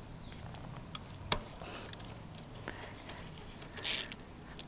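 A few light metallic clicks and taps as a 5 mm Allen key is fitted to and worked on a motorcycle brake caliper bolt. There is a sharp click about a second in and a short cluster of taps near the end.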